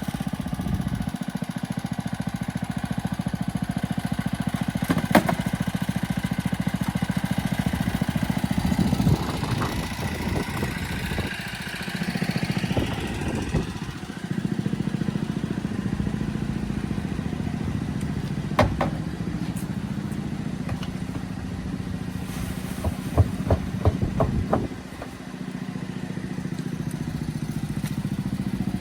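Honda 21-inch walk-behind lawn mower engine running steadily while it picks up fallen leaves. The level dips briefly twice, and a few sharp knocks sound, one near the start, one past the middle and a quick cluster near the end.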